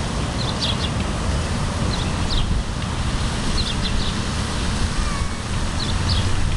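Wind rumbling on the microphone, with a small bird chirping short phrases every second or so.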